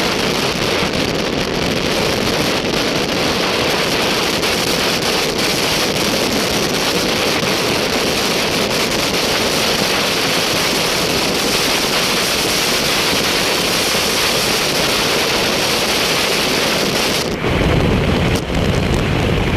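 Steady rushing noise, like wind and moving-vehicle noise on the microphone; near the end it turns deeper and heavier for about two seconds.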